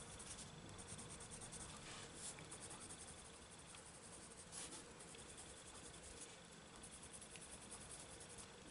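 Faint, quick scratching of a white coloured pencil rubbed over coloured-pencil layers on thin book paper, blending the colour.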